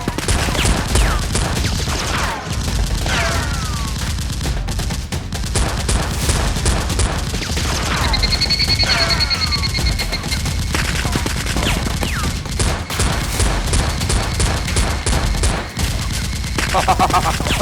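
Dense gunfire sound effects: rapid, overlapping bursts of automatic fire run throughout, with several falling whistling sweeps. About eight seconds in, a high pulsing tone lasts around two seconds.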